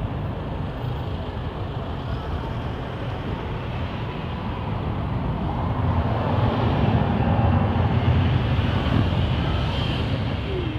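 Boeing 737-800 jet engines on a fast low pass: a steady, broad jet noise that grows louder from about halfway through, peaks, then eases off near the end.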